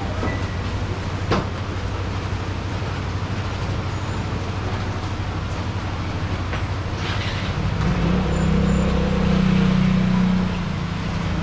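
Steady low rumble of vehicle noise, with a sharp click about a second in. A louder low drone swells up about eight seconds in and drops back about two and a half seconds later.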